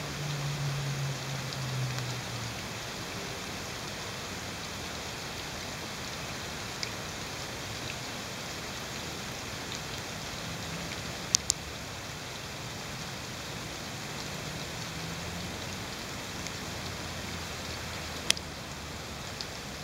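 Steady rain falling, a continuous even hiss, with a few sharp ticks of single drops, two close together about halfway through and one near the end.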